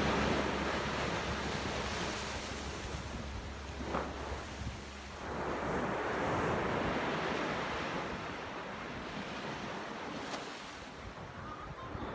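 Sea waves breaking and washing up on the shore, the surf swelling and ebbing, with wind buffeting the microphone.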